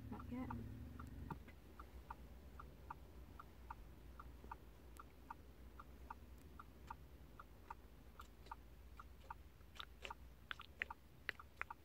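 Faint, regular ticking, about two to three ticks a second, over a low steady hum inside a stationary car. Near the end a run of sharper, irregular clicks comes in.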